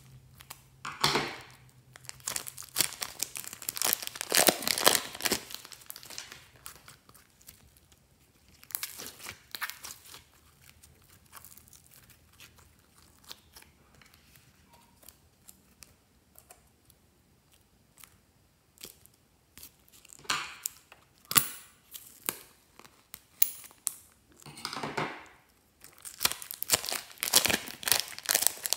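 Slime being squeezed by hand out of thin plastic piping bags: the plastic crinkles and the slime gives crackly, clicky squishes as it is pressed and folded. The crackling comes in spells, with a quieter stretch in the middle.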